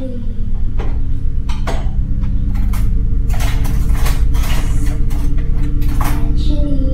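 A low, steady rumbling drone with a hum, swelling slightly in the first seconds, under scattered short clatters and clinks of dishes being handled.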